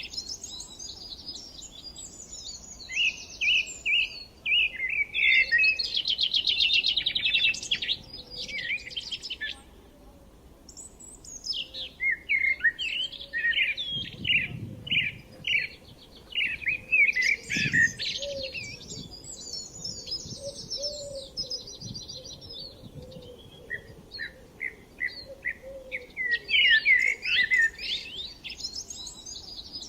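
Several songbirds singing and chirping, overlapping short phrases with a fast trill a few seconds in and a brief lull near the middle. A couple of faint low thumps sit under the song around the middle.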